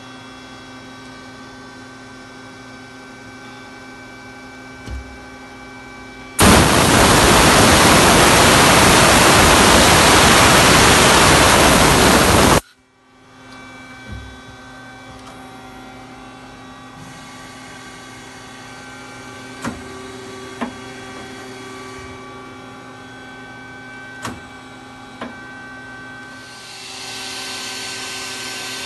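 Steady electrical hum with several fixed tones from an idling Mazak SQT-100MY CNC turn-mill lathe. About six seconds in, a very loud rushing hiss starts suddenly, holds for about six seconds and cuts off abruptly. A few faint clicks follow, and a softer hiss comes in near the end.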